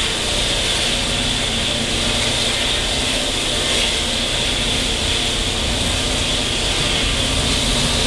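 Steady running noise of a Taiwan Railway ordinary-class passenger train, heard from inside a non-air-conditioned coach: a constant hiss over the rumble of the wheels on the rails.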